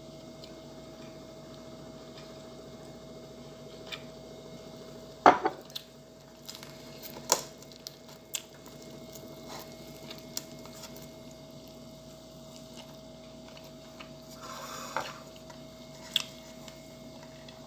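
Scattered sharp clicks and taps of a meal of fried fish and rice being eaten by hand from a plate, with a louder knock about five seconds in, over a steady hum.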